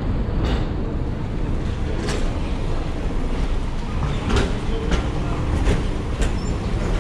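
Metro station concourse ambience: a steady low rumble with a few sharp, irregular clicks of footsteps on the hard tiled floor.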